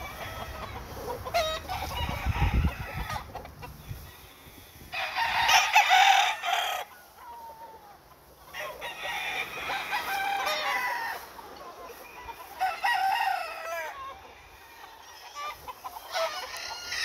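Fighting cocks crowing, several long crows one after another, the loudest about six seconds in.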